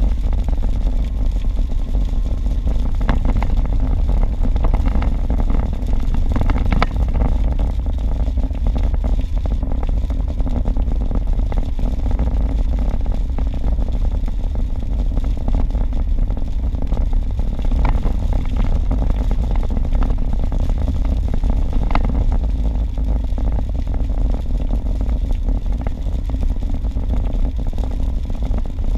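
A car driving at highway speed on a wet road, heard inside the cabin: a steady low rumble of tyres and engine. A few faint ticks come through now and then.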